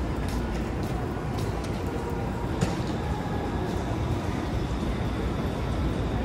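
Train station concourse ambience: a steady low rumble with light taps in the first second or so and one sharper click about two and a half seconds in.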